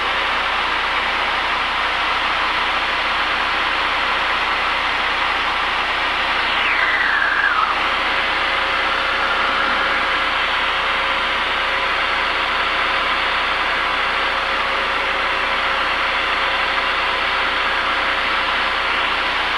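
Cessna 172's piston engine and propeller running steadily in level cruise, heard inside the cockpit as an even drone with wind noise. About six seconds in, a whine falls in pitch over a second or two.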